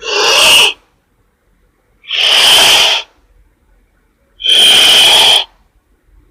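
The giant anaconda's film sound effect: three loud, breathy hisses with pauses of about a second and a half between them. The first is short, the second and third about a second each.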